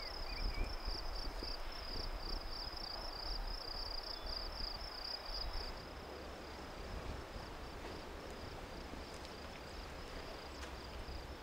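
An insect chirping in a fast, steady pulse over faint outdoor background noise; the chirping drops to a fainter level about halfway through.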